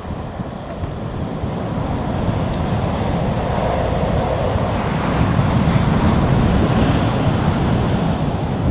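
Boeing 737-800's CFM56 jet engines running at taxi power, a broad rumble that swells about halfway through, mixed with wind buffeting the microphone.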